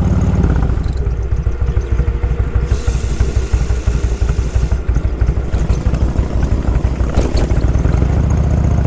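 Motorcycle engine running while riding, with an uneven pulsing note from about half a second in that steadies again near the end.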